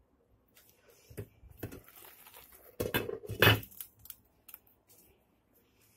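Metal cooking pots and their glass lids clinking, knocking and scraping on a glass-ceramic hob as the pots are moved about. There is a scatter of short clanks, loudest about three and a half seconds in.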